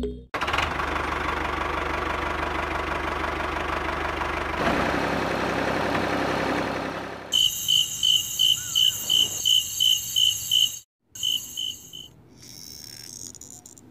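Small electric motor of a miniature DIY tractor whirring steadily, stopping about seven seconds in. Then a run of short, high chirps, evenly spaced at about three a second, cut briefly partway through.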